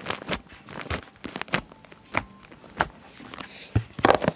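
Slime being squeezed and stretched in the hands, making scattered small pops and clicks at irregular intervals.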